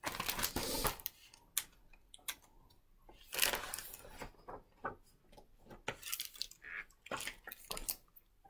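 Pages of a hardcover picture book being turned and the book handled: several short paper rustles, the strongest at the start and about three and a half seconds in, with a few small taps between.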